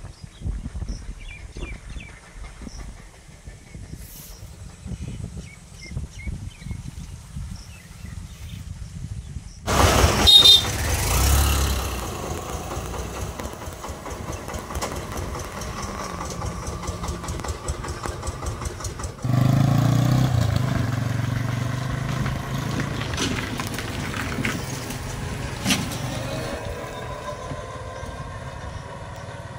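Motor vehicles passing on a road: a loud pass about a third of the way in, then an engine's steady hum that comes in sharply past the middle and slowly fades as it moves away.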